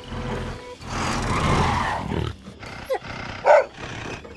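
Cartoon sound effects: an animal-like roar from an animal-vehicle character, with a noisy rush in the middle and a short cry near the end.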